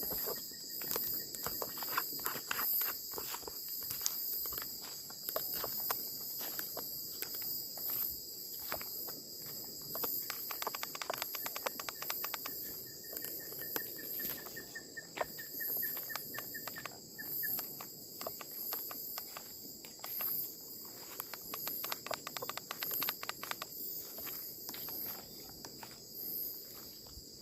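Insects chirping steadily and high-pitched in bush, with footsteps and the crackle of brush underfoot throughout. A short pulsing trill is heard about halfway through.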